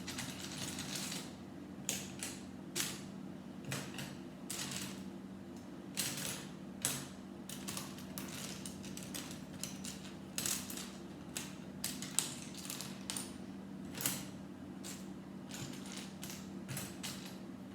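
Small plastic Lego pieces clicking and rattling as they are handled and sorted by hand, with scattered sharp clicks over a steady low hum.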